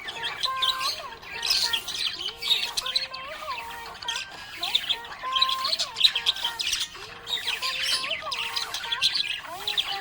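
Budgerigar chattering in rapid high chirps and squawks, over a simple tune of held notes that step up and down.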